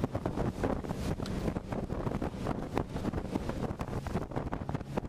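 Wind buffeting the microphone hard as a small fishing boat runs at speed over choppy water, with the outboard engine's low steady hum beneath.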